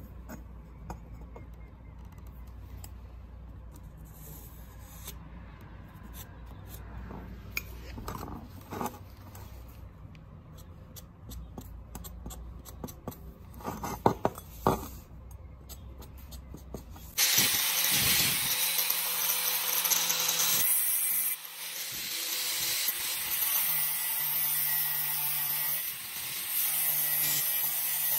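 Light knocks and rubbing as steel tubing is handled. Then, a bit more than halfway through, an angle grinder starts and cuts into rusty square steel tube, a loud steady grinding that dips once briefly and carries on.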